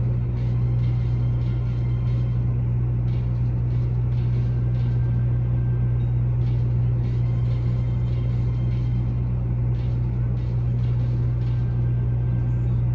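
A steady low hum that holds one pitch without change throughout.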